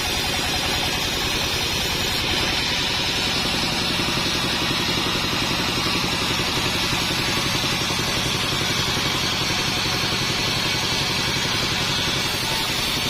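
Modified band sawmill running steadily: a fast, even machine pulse with a steady hiss over it.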